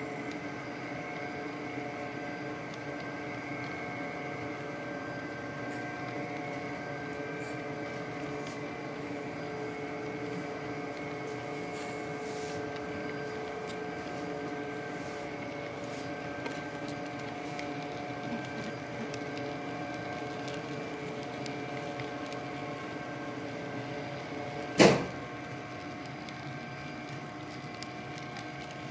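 HO scale coal hopper cars rolling past on model track: a steady hum with several even tones. A single sharp knock about 25 seconds in is the loudest sound.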